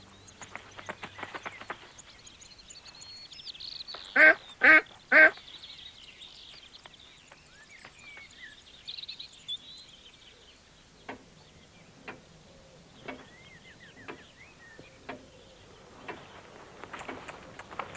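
A duck quacking loudly three times in quick succession about four seconds in, among high thin peeping of ducklings, with a few softer, shorter calls spaced about a second apart later on.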